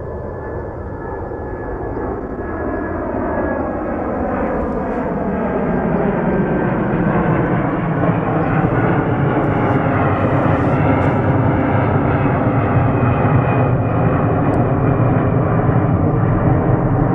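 Airbus A330-200's Rolls-Royce Trent 772B turbofans at takeoff thrust, growing steadily louder as the jet approaches, with a high whine over a deep rumble.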